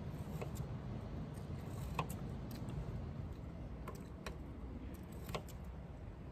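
Paring knife cutting a potato into small pieces on a wooden cutting board: sharp, irregular taps of the blade on the board, about six in all, over a steady low hum.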